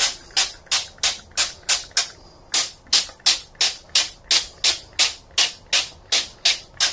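Hand-pumped cooking oil spray bottle squirting oil onto kitchen foil in a quick, even run of short hissing sprays, about three a second.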